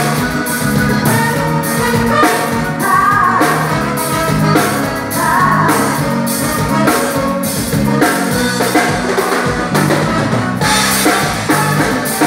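Live forró band playing at a sound check: singing over drum kit and percussion with a steady, even beat.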